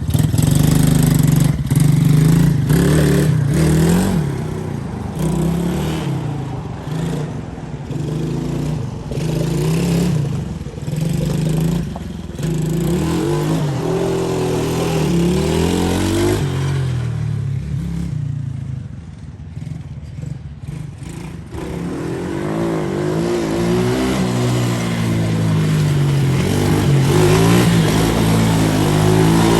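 125cc Coolster ATV's single-cylinder four-stroke engine running as the freshly repaired quad is ridden to break it in, the engine note rising and falling with the throttle. It drops quieter for a few seconds past the middle, then picks up again.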